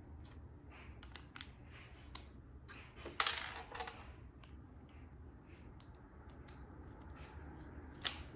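Alcohol swab scrubbing and hands handling the plastic underside of a Roborock S8 robot vacuum: scattered light clicks and taps, a short scratchy rub about three seconds in, and a sharp click near the end.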